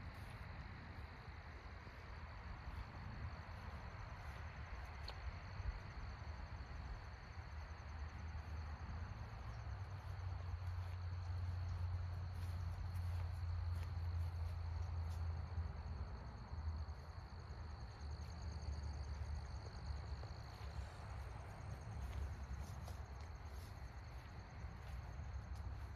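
Meadow insects trilling steadily at a high pitch, over a low rumble that swells in the middle.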